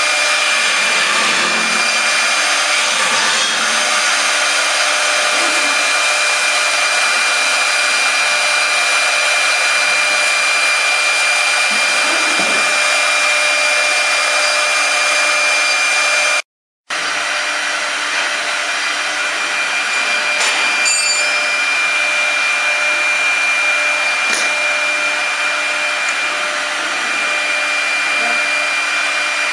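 High-speed CNC router spindle running with a steady whine and hiss as a fine carving bit cuts detail into a wooden chair leg. The sound drops out completely for a moment a little past halfway, then the same steady whine resumes.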